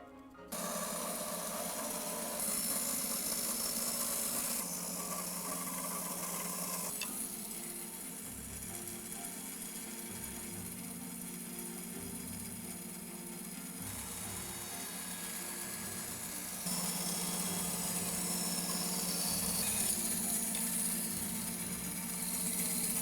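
Bandsaw running and cutting through a block of poplar: a steady motor hum under a continuous hiss of the blade in the wood, starting abruptly just after the start.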